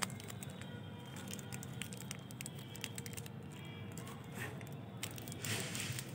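Plastic candy and biscuit wrappers crinkling and crackling in the fingers, with many small clicks and a louder rustle near the end, over faint background music.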